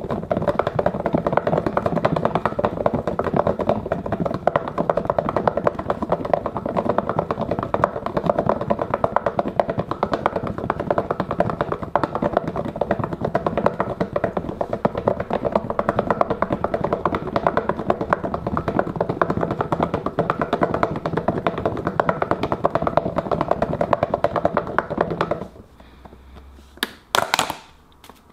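Wool felt balls and hot soapy water rattling and sloshing inside a closed plastic food box that is shaken hard and fast without pause: the wet-felting stage that firms and smooths the balls. The shaking stops suddenly near the end, and a couple of sharp plastic clicks follow as the lid is unclipped.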